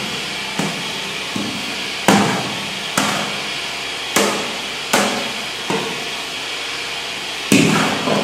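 A perforated metal skimmer knocking and scraping against the sides of a metal tub as it stirs minced meat and rice. There are about eight sharp knocks at irregular intervals, each ringing briefly, over a steady hum.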